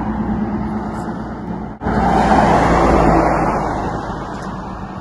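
Road vehicle noise: a steady hum, a sudden brief break just under two seconds in, then a car's noise swelling and fading away as it passes.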